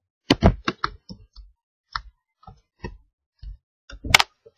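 Computer keyboard being typed on: an irregular run of key clicks, thickest in the first second, with one louder, sharper click about four seconds in.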